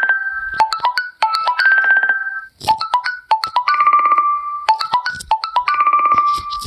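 Marimba-style ringtone from an Onn device playing a short melodic phrase of quick struck notes that repeats about every two seconds.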